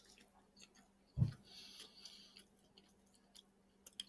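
Quiet chewing and small mouth clicks, with a single short low thump about a second in, followed by a soft hiss.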